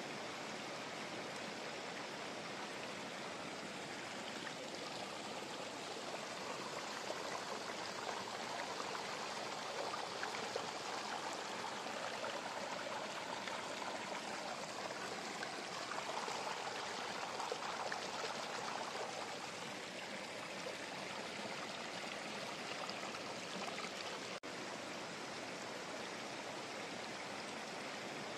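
Steady background hiss with no distinct sounds in it.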